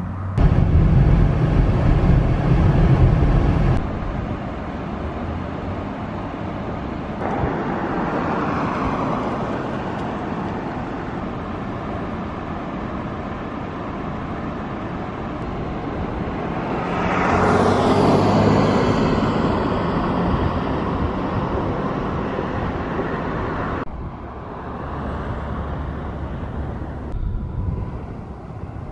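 Roadside traffic noise with vehicles going by on the highway. One vehicle passes close, swelling and then fading about two-thirds of the way through. The background changes abruptly a few times.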